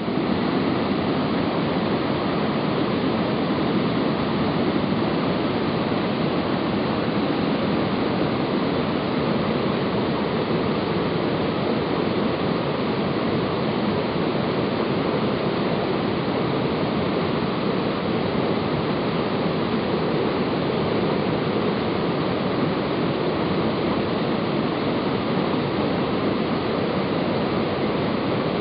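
Mountain creek water falling and cascading over rock ledges: a steady, even rush of white water.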